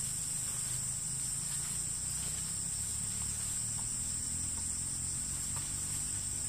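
Forest insects keeping up a steady, unbroken high-pitched buzz, with a low rumble underneath and a few faint ticks.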